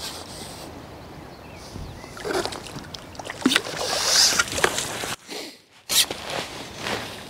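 A hooked fish splashing at the water's surface and water sloshing as it is drawn into and lifted out in a landing net, in irregular bursts from about two seconds in.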